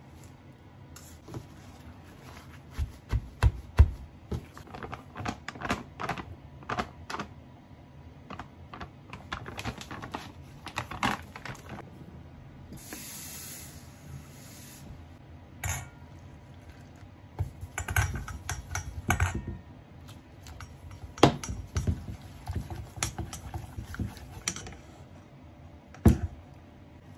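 Food-prep handling sounds: a long run of light clicks, taps and knocks of utensils and hands against a stainless steel bowl and colander, with a brief hiss about thirteen seconds in. Near the end, chopsticks knock in the steel bowl as tempura batter is mixed.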